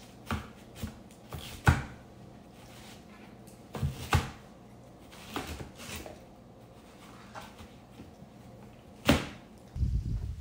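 Large kitchen knife cutting a watermelon into wedges on a cutting board: a series of irregular sharp knocks as the blade comes down on the board, the loudest one about nine seconds in. Near the end a low rumbling noise comes in.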